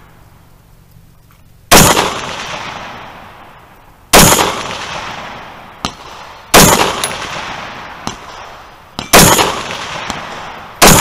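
Scoped rifle fired five times at a slow, steady pace, about two and a half seconds between shots, each shot echoing away before the next, with a few faint sharp ticks between shots.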